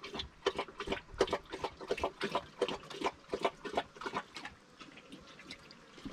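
A thirsty dog lapping water, quick rhythmic laps about three to four a second, stopping about four seconds in.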